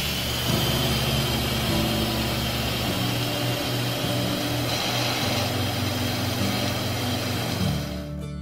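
Instant Pot electric pressure cooker venting steam through its pressure release valve: a loud, steady hiss as the pressure is let out, cutting off sharply near the end.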